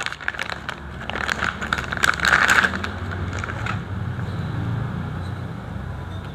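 Rustling, crinkling and small clicks of a boxed hydraulic door closer and its packaging being handled, then a low steady rumble from about three seconds in.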